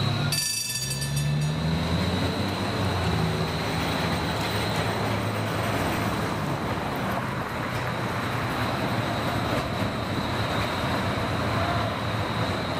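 Electric streetcar passing close by on street track among road traffic, its motors giving a low hum that rises in pitch over the first few seconds, over the steady noise of passing cars. A brief high ringing sounds about half a second in, and a thin high tone runs steadily underneath.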